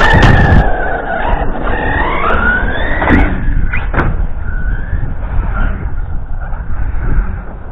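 Radio-controlled off-road buggy's motor whining, its pitch rising and falling with the throttle as it drives off, fading near the end. A couple of sharp knocks come about three and four seconds in.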